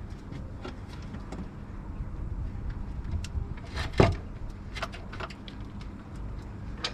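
Scattered clicks and knocks of metal parts as a gearbox is worked loose from the engine under a car, with one loud knock about four seconds in.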